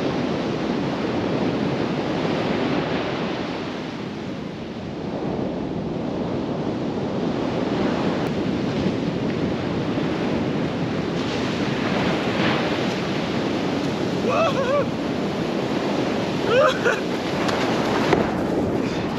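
Steady rush of fast-moving water with strong currents. A couple of brief voice sounds come near the end.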